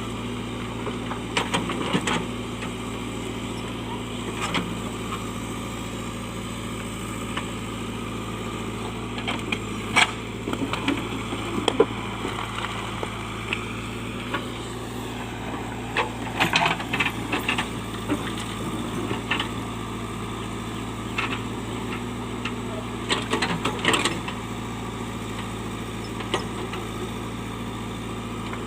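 JCB backhoe loader's diesel engine running steadily as it digs. Clusters of clanks and scrapes from the bucket working against stones and soil come about two seconds in, around ten to twelve seconds, around sixteen seconds and around twenty-four seconds.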